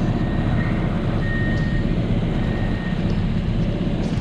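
2013 Case 590 Super N backhoe loader's diesel engine idling steadily, with a thin high whine that comes and goes over the first few seconds.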